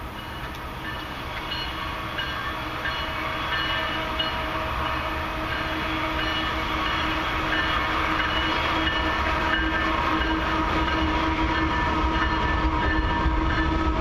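Approaching CN freight train's diesel locomotives, running with a steady rumble and steady tones, growing gradually louder as the train draws near.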